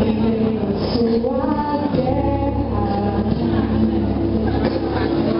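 A young woman singing a Portuguese song into a microphone over an instrumental backing track, her voice amplified through the hall's PA.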